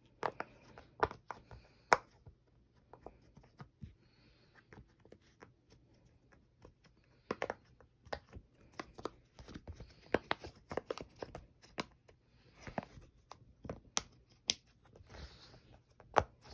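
A large silicone pop-it fidget toy having its bubbles pressed by hand, giving irregular soft pops and clicks. A few come early, then a quiet spell, then a denser run through the second half.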